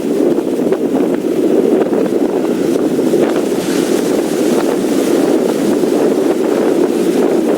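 Strong hurricane wind buffeting the microphone: a loud, steady rumbling roar that does not let up.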